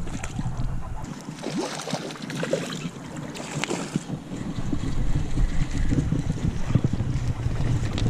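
Wind buffeting the microphone over the rush of a stream, the low rumble easing off for a few seconds about a second in, with scattered small knocks.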